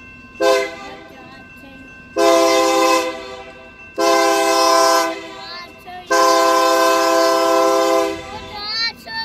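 Union Pacific #4059 freight locomotive's air horn sounding for a grade crossing as the train approaches: a short toot, then three long blasts, the last one about two seconds long.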